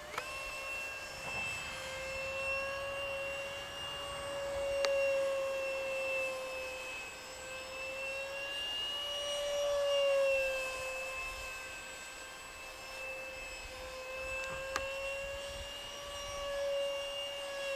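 Electric ducted fan of a radio-controlled F-35 model jet whining in flight, a steady tone whose pitch drifts gently up and down as the jet flies about.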